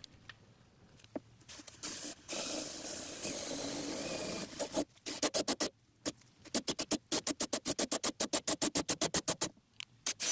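Cordless drill boring through the sheet metal of a truck's front quarter panel. It runs steadily for a couple of seconds, then after a short pause it chatters in quick, even pulses, several a second.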